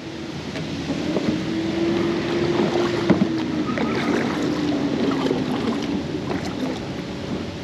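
Rope sliding and small knocks around a plastic kayak as a magnet-fishing magnet is thrown out on its rope, over river water and wind noise, with a faint steady hum through most of it.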